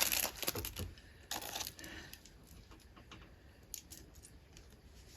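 Packaging crinkling in a few short rustling bursts as small clips are handled and taken out, then a couple of faint light clicks.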